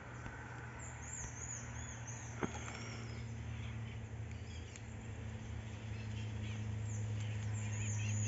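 Africanized honey bee swarm buzzing at the entrance of a wooden hive box: a steady low hum that grows louder toward the end, the colony in busy flight. High chirps come twice, and a single click sounds about two and a half seconds in.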